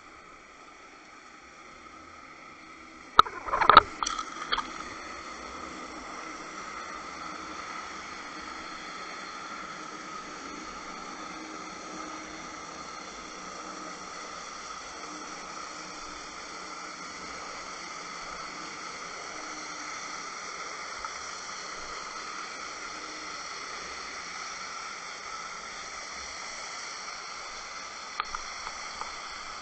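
Underwater ambience picked up by a submerged camera: a steady hiss with faint humming tones. A quick cluster of sharp knocks comes about three to four seconds in, and a few light ticks near the end.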